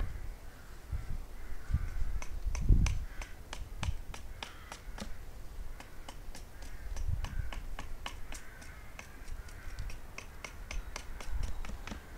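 A hatchet striking the edge of a wooden slat held upright on a chopping block, trimming it: a run of quick, light, sharp knocks about three a second, with a few heavier thuds in the first few seconds. Crows caw in the background every few seconds.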